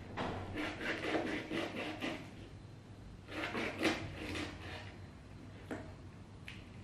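Knife sawing and chopping through an eel on a cutting board: two runs of quick scraping strokes, then a single sharp knock near the end.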